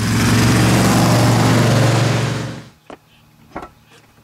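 Dodge Viper's V10 engine running loudly at a steady pitch for about two and a half seconds, then cutting off, followed by a few faint clicks.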